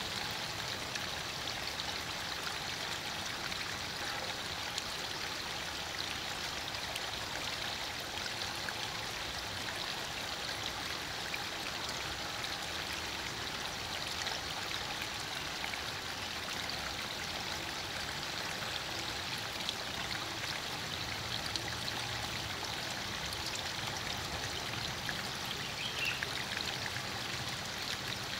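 Steady rushing and burbling of a flowing stream.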